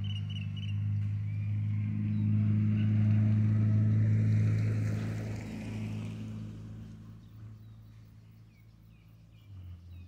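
A motor engine's low hum with rushing noise that swells over the first few seconds and fades away after about six seconds, like an unseen vehicle passing by. Faint bird chirps near the end.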